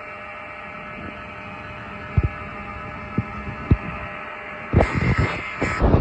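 Fire alarm sounding a steady, unbroken buzzing tone. A few soft thumps come through it, then a louder burst of rustling near the end.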